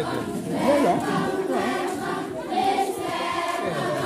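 A crowd of voices singing or chanting together, many pitches overlapping at a steady level.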